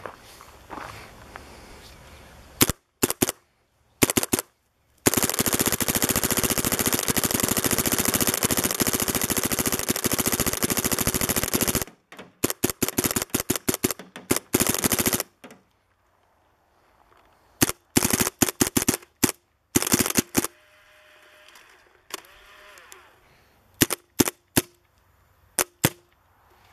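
Redz Autococker paintball marker with an electronic frame firing in semi-automatic: a few single shots, then a long, very fast string of shots lasting about seven seconds, then shorter strings and scattered groups of shots.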